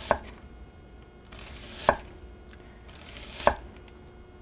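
Chef's knife slicing a sweet onion into thin strips on a wooden cutting board: a short crisp cut through the onion, then the blade knocks on the board, three times about a second and a half apart.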